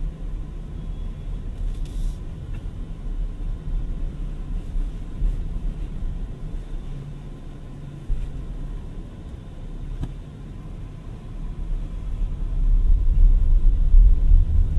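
Low tyre and road rumble inside the cabin of a BMW iX3 electric crossover on the move, with no engine note. The rumble grows louder about twelve seconds in as the tyres run onto cobblestones.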